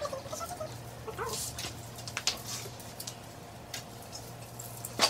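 Scattered light clicks and rustling from Christmas ornaments and tinsel being handled, over a steady low hum, with a few faint short whine-like sounds in the first second or so.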